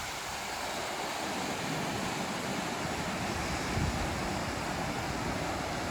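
Steady rushing of water pouring over a waterfall.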